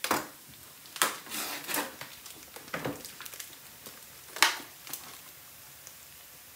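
Plastic mince tray and its film wrapper crinkling and crackling as they are handled and emptied, in a handful of short rustles; the loudest comes about four and a half seconds in.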